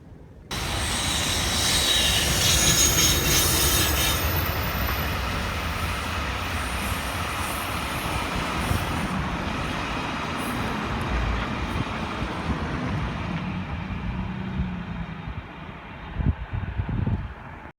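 Freight train hauled by an electric locomotive running past on the rails: a steady rumble of wheels with a high squealing hiss that is strongest in the first few seconds. It starts suddenly about half a second in and cuts off suddenly at the end, with a few louder knocks just before.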